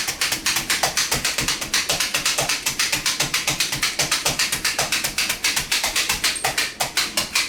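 Hand-held blade meat tenderizer being pumped into a pork loin, giving a fast, even clicking of about eight strokes a second.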